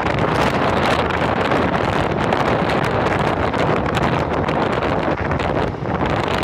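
Loud, steady wind noise buffeting the microphone of a phone carried on a moving vehicle: a continuous rushing with no breaks.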